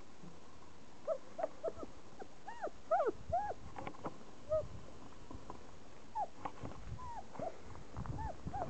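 Young German Shepherd puppies, about four weeks old, whimpering and squeaking. Many short squeals rise and fall in pitch and overlap, coming thickest in the first half and again near the end.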